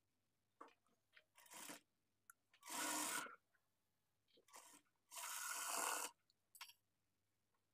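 Blouse fabric rustling as it is handled, in about six short bursts, the two loudest about three seconds in and between five and six seconds in.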